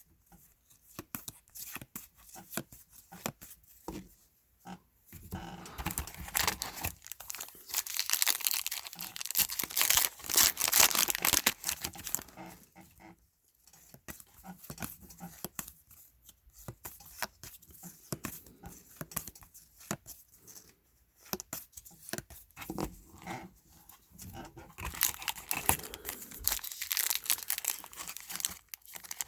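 Trading card pack wrappers being torn open and crinkled, with cards rustling as they are handled, in irregular bouts with the loudest stretches about a third of the way in and near the end.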